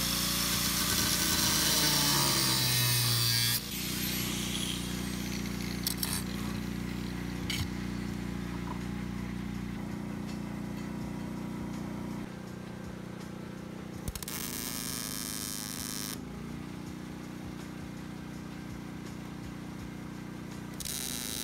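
Electric angle grinder grinding steel, a loud harsh whine for about three and a half seconds before cutting off. Two shorter harsh bursts follow, about 14 and 21 seconds in.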